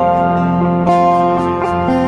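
Background music: plucked guitar notes over a held bass.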